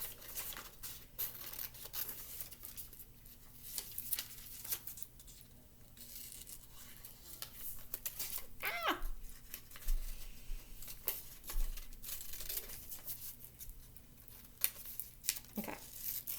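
Scissors cutting paper: irregular small snips and paper rustling as a little strip is cut out carefully.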